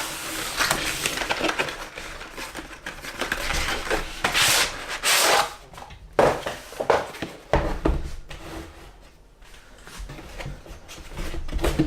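Handling noises from a torque wrench and its case being unpacked: rubbing and rustling, with several knocks and clicks along the way.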